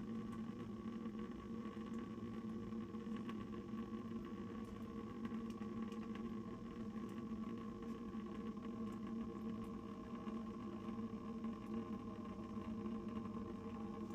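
Steady machine hum with a few constant tones and faint scattered ticks.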